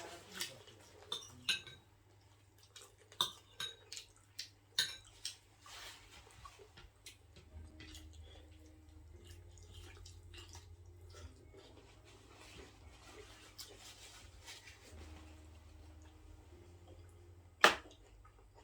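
Dishes and cutlery clinking against plates during a meal: a cluster of sharp clinks in the first five seconds, lighter clicks after that, and one loud clink about a second before the end.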